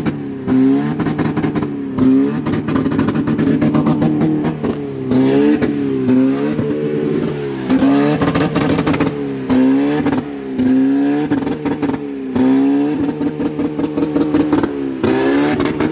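Car engine being revved over and over, its pitch rising and falling about every second or so. Sharp crackles and clicks run throughout.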